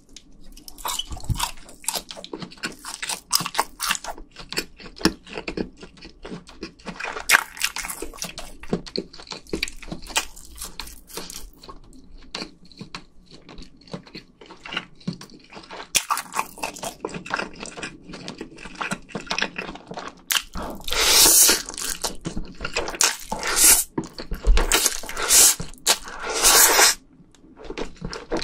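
Close-miked chewing and biting of a skewered fish-cake hot bar and spicy stir-fried noodles: a steady run of small wet clicks and crunches. In the last several seconds come a few long, loud slurps as noodles are sucked in.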